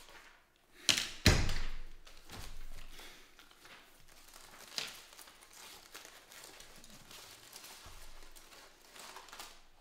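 Two sharp knocks about a second in, then aluminium foil crinkling and crackling as a foil-wrapped sandwich is unwrapped by hand.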